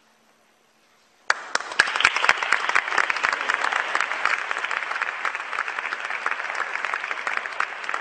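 Applause, many hands clapping, starting suddenly about a second in.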